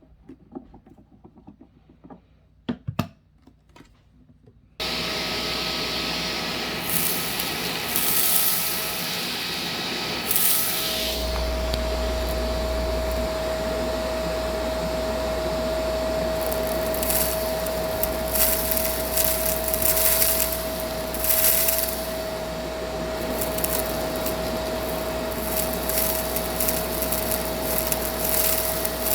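Shark vacuum cleaner switched on after a couple of clicks, about five seconds in, then running steadily with a constant whine, its high hiss surging again and again as it sucks up fine dirt.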